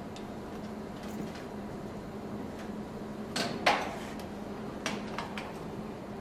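Clicks and knocks of plastic air tubing being handled and fitted onto a connection on a stainless-steel instrument panel: a sharp knock about three and a half seconds in, the loudest, then a few lighter clicks around five seconds. A steady low hum runs underneath.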